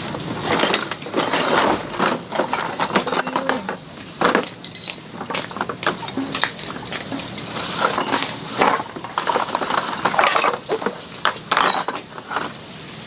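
Irregular clinks and knocks of hard objects being handled and set down.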